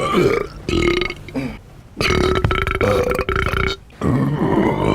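A man belching loudly, several burps in a row: a short one about half a second in, then two long drawn-out burps of over a second each.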